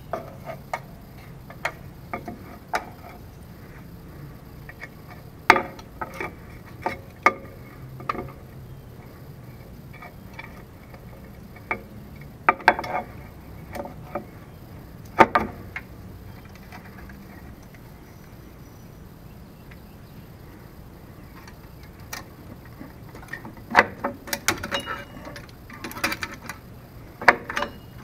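Metal clinks and clanks of drum-brake shoes, springs and hardware being handled and fitted onto the backing plate, coming in irregular clusters with a quieter stretch in the middle.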